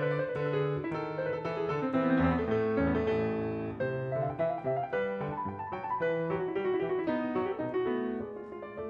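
Background piano music: a melody of quickly struck notes over lower bass notes.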